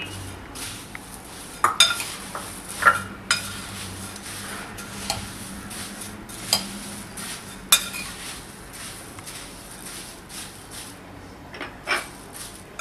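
A spoon mixing puffed rice with boiled potatoes in a bowl: a steady dry rustle with scattered sharp clinks of the spoon against the bowl.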